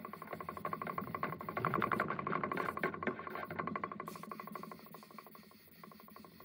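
Rapid, even mechanical clicking like a ratchet, with a ringing tone; it grows louder about two seconds in, then fades away.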